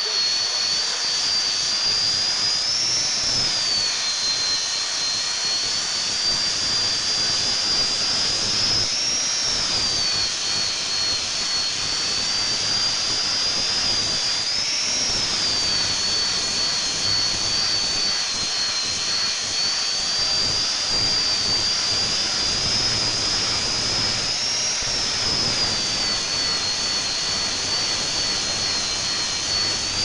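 FEIN GRIT GHB15-50 handheld belt grinder running with its abrasive belt grinding a steel plate: a high, steady whine over a harsh grinding hiss, the whine briefly rising in pitch four times.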